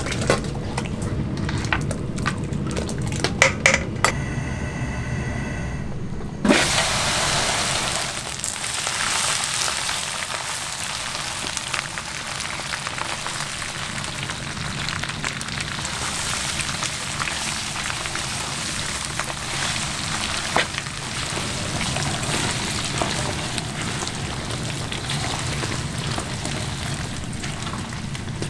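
Beef sizzling on a hot cast-iron grill plate: a dense, steady sizzle that starts suddenly about six seconds in and keeps going. Before it, a few sharp clicks and knocks.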